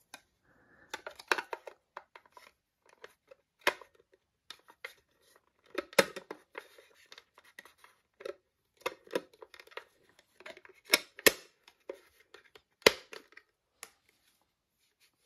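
Irregular plastic clicks and taps from handling the white plastic case of an electronic blood pressure monitor and its snap-on battery-compartment cover, with a few sharper snaps about 6, 11 and 13 seconds in.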